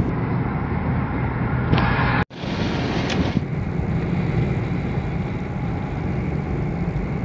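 Steady road and engine noise inside a moving car's cabin, with a brief sudden break a little over two seconds in.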